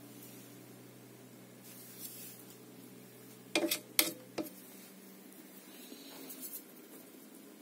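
Three sharp taps about half a second apart, just past the middle, with faint rubbing before and after over a low steady hum that fades after the taps.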